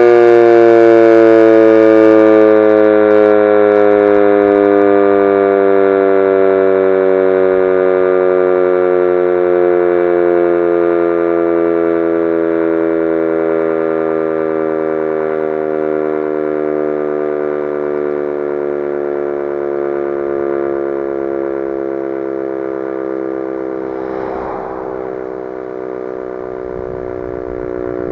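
Sentry 3V8-H outdoor warning siren winding down, its tone sliding slowly lower and fading. It is recorded close enough to overload the microphone.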